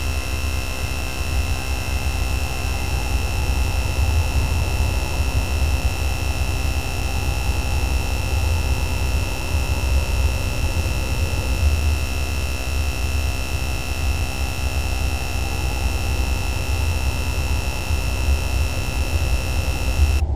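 Electronic sound-therapy noise track: a dense, steady drone of many fixed tones layered over a heavy low rumble, with one prominent high tone. Just before the end the high tones cut off suddenly, leaving only the lower rumble.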